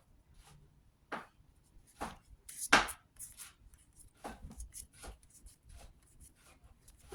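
Trading cards being handled and flicked one by one as a booster pack is sorted through: a series of short, irregular card snaps and slides, the loudest about three seconds in.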